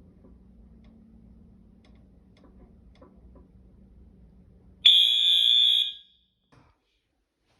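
Fire alarm sounder giving one loud, high-pitched blast of about a second, starting about five seconds in and cutting off sharply, sounded as a test during an alarm inspection. Before it there is only a faint low hum.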